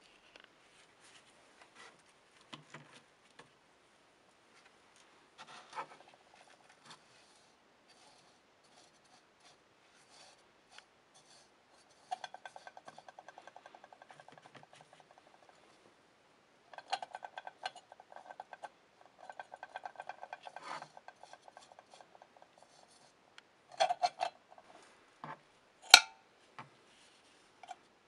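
Paintbrush scrubbing rust converter onto the inside of a metal cow bell: runs of rapid scratchy bristle strokes, with the bell body ringing at a steady pitch under them. A few sharp metallic knocks come near the end as the bell is handled, the loudest a couple of seconds before the end.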